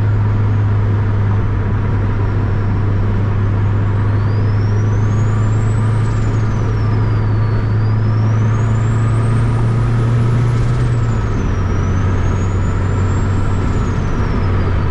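Turbocharged 2007 Honda Accord's K-series four-cylinder engine and exhaust droning at a steady cruise, over road noise. The drone's pitch drops slightly about eleven seconds in, and a faint high whine rises and falls throughout.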